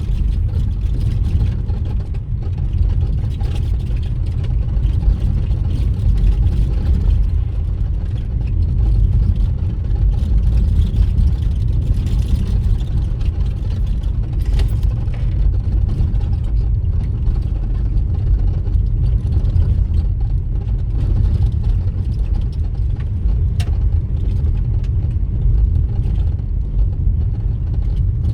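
Steady low rumble of a vehicle travelling along a road, road and engine noise with no marked changes.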